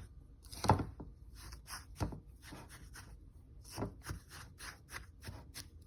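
A utensil stirring a crumbly graham cracker, chopped pecan and melted butter crust mixture in a bowl. It gives quick repeated scraping strokes, a few a second, with a few louder knocks against the bowl.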